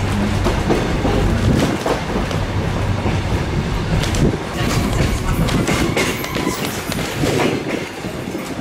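Passenger train running along the track, heard from aboard a carriage: a steady rumble with scattered clicks of the wheels over the rails.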